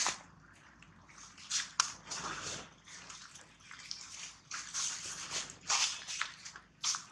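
Dry leaf litter rustling and crackling in irregular bursts, with a few sharp snaps, as a macaque rummages through it by hand.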